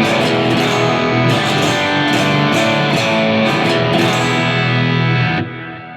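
Electric guitar strummed in chords through a Line 6 Helix running a capture of a 1966 Vox AC30 amp, with repeated strokes and sustained notes. The playing stops about five and a half seconds in and the sound dies away.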